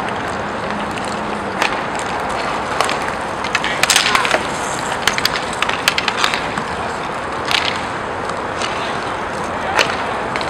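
Roller hockey play: the steady rush of inline skate wheels on the rink floor, with sharp clacks of sticks and puck, several in quick succession about four and five seconds in.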